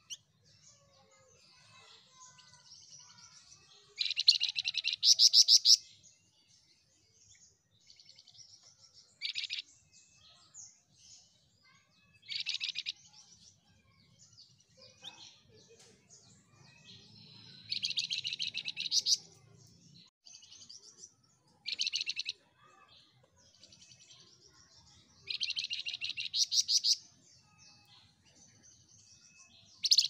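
Caged flamboyan songbird singing: repeated bursts of rapid, high, trilled notes every few seconds, loudest about four to six seconds in, with softer chirps between.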